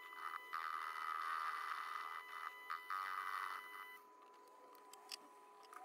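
Proxxon mini lathe running with a steady whine while its tool bit faces the end of a hard 16 mm rebar, the cutting noise coming and going in spurts. About four seconds in the cut stops and only the lathe's quieter whine and a few light clicks remain.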